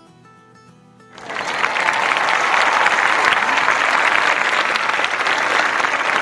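Crowd applause starting suddenly about a second in and staying loud and even, over quiet acoustic guitar background music.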